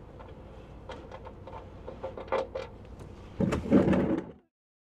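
Light clicks and knocks of hand work on metal parts under a pickup truck, then a louder clattering burst about three and a half seconds in that stops abruptly.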